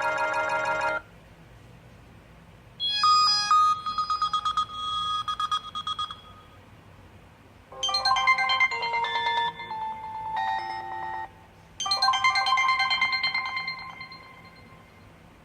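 HTC Desire 601 smartphone's built-in ringtones played one after another as short previews. One ends about a second in, then three more melodies of about three seconds each follow with a short pause between them. The last one fades out.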